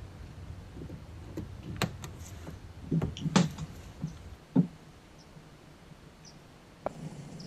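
Plastic push-pin fender clips on a Tesla Model 3's wheel-well liner being pried out by hand: a few sharp clicks and snaps in the first five seconds, the loudest about three and a half seconds in.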